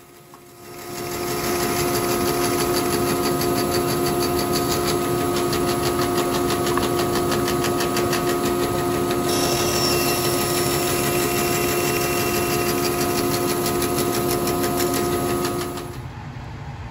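Rikon 14-inch bandsaw starting up about a second in and running steadily with a hum as it cuts plywood in an angled sled jig. The sound cuts off suddenly near the end.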